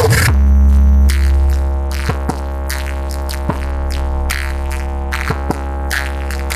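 Electronic dance music played loud through a big sound-system rig under test. A heavy, sustained deep bass comes in just after the start, under held synth notes and short sharp drum-machine hits.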